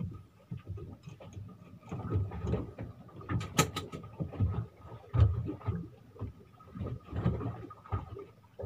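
Fishing boat rocking at sea: irregular low thumps and knocks of water and hull, with a sharp click about three and a half seconds in and a faint steady high tone underneath.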